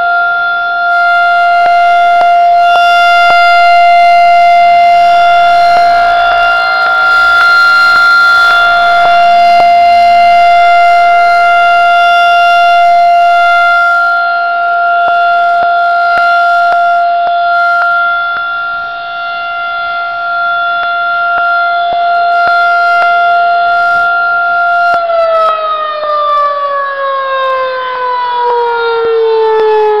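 Federal Signal 2001-SRN (second-generation) rotating tornado siren sounding its steady test tone, the loudness rising and falling a little as the horn turns. About 25 seconds in the pitch begins to fall steadily as the siren winds down.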